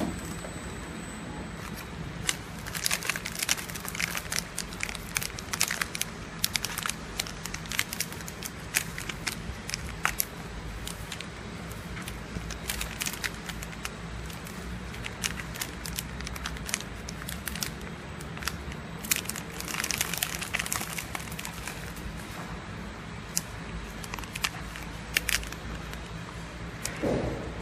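Plastic film packs crinkling and crackling irregularly as they are handled, over the steady low hum of a running horizontal flow-wrap packing machine.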